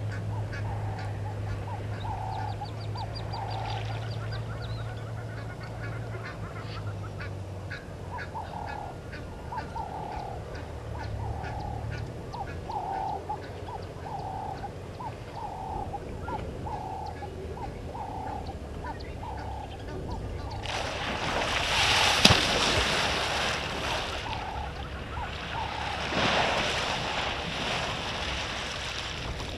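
A short honking animal call repeating about once a second, with faint high ticking and a low hum under it early on. In the last third, water splashes loudly twice, with a sharp crack at the loudest point.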